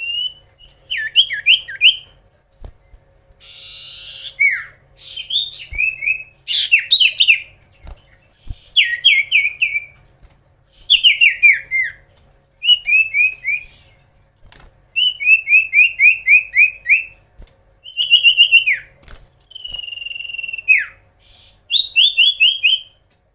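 Common iora (cipoh) singing energetically: repeated runs of quick, down-slurred whistled notes, each run about a second long, with short pauses between them.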